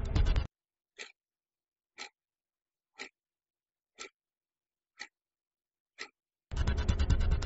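Ajanta quartz wall clock ticking, six sharp ticks one second apart in otherwise dead silence. Background music cuts out just after the start and comes back near the end.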